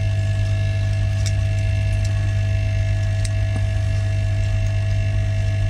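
Steady low electrical hum at an even level, with a few faint light clicks.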